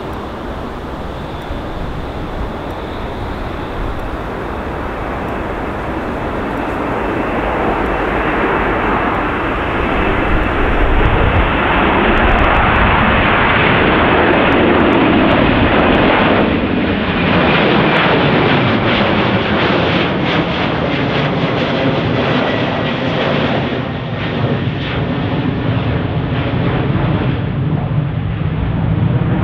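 Jet airliner engines on take-off: a loud rumble that builds over the first dozen seconds and then stays loud, with a high whine that falls slowly in pitch and sweeping waves in the noise as the aircraft passes.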